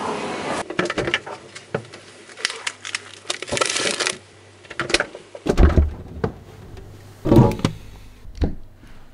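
Rustling of a plastic shopping bag and handling noise, with a string of irregular clicks and knocks. After about five and a half seconds come a few louder dull thumps and rustles.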